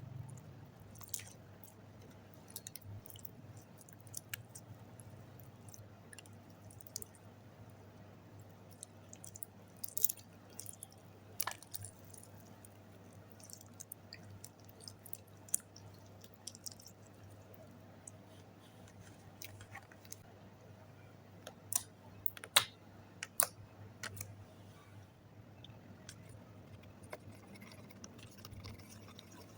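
Slime being worked by hand, giving off irregular small sticky clicks and pops, with a cluster of sharper ones about three-quarters of the way through.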